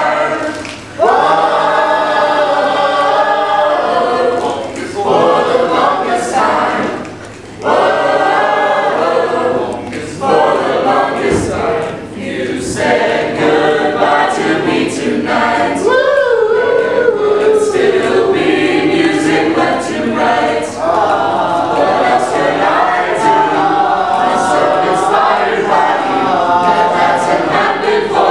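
A mixed choir of men's and women's voices singing together, phrase by phrase, with short breaths between phrases in the first few seconds.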